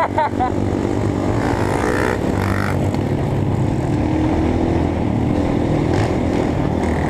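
Honda CRF230F trail bike's single-cylinder four-stroke engine running steadily while the bike rides along a dirt road, heard from on the bike. The pitch rises a little around the middle.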